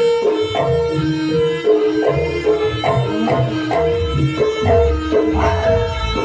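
Live band playing an instrumental passage: a hand-drum rhythm under a melodic lead of held, stepping notes, with a heavy bass.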